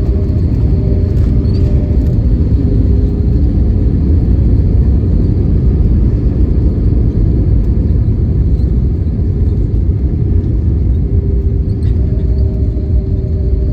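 Cabin noise inside an Airbus A320neo: a loud, steady low rumble with a faint steady engine tone over it.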